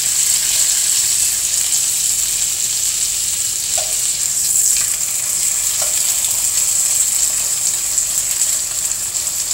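Thin-cut chicken breasts sizzling in olive oil in a skillet as they brown: a steady, even hiss.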